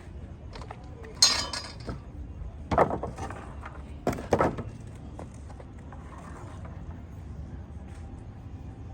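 Several sharp clattering knocks of hard objects, with a short rattle after each: one about a second in, one near three seconds and a quick double at about four seconds.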